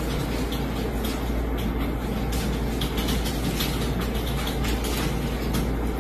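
Steady low rumble with hiss: constant background noise on the recording, with no speech.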